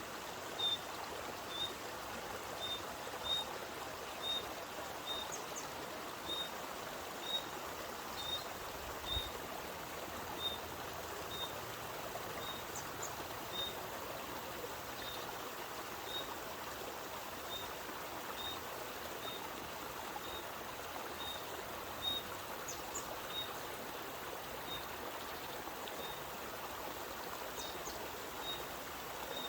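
Spring water flowing steadily out of a mountainside, an even rushing sound, with a bird repeating one short high note about once a second.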